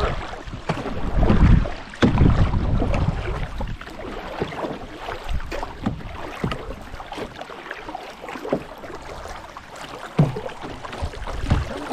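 Canoe paddles dipping and pulling through the water, with irregular splashes and drips. Wind buffets the microphone as a low rumble for the first couple of seconds.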